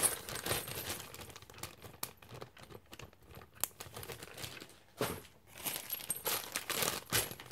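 Small resin pendants clicking and clinking together as they are handled, with rustling packaging. There is a louder rustle and clatter about five seconds in.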